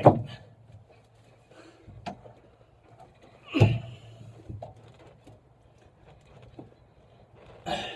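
Wooden paint stick prying and pushing a rubber headliner gasket into the roof of a 1957 Chevy truck cab: scattered light knocks and scrapes, with a louder thump about three and a half seconds in.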